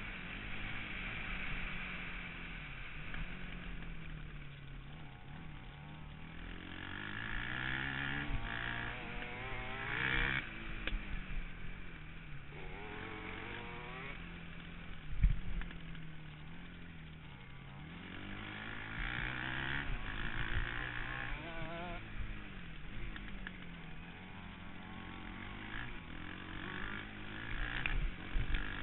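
KTM 525 XC quad's single-cylinder four-stroke engine revving up and down over and over as it accelerates, shifts and slows on a rough dirt track. A sharp knock comes about halfway through.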